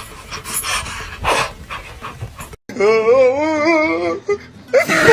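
A black-and-white cat giving short, breathy, bark-like huffs with its mouth wide open. Then a boxer dog howls with a wavering pitch for about a second and a half, and a second, steadier howl starts near the end.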